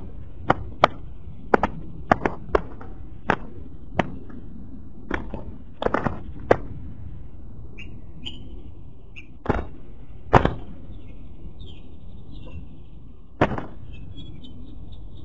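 Two spotted doves fighting on the ground: a run of sharp, irregular wing slaps, about fifteen in all, the loudest about ten seconds in, over a steady background noise.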